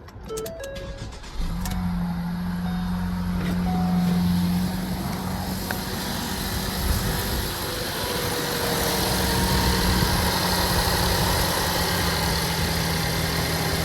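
2013 Ford Escape's engine starting on its freshly installed battery about a second and a half in, then running steadily.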